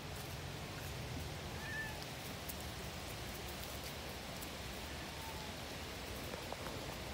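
Footsteps and rustling on a dry, leaf-littered woodland path, with scattered faint crackles over a steady background hiss. There are a couple of faint, short high calls.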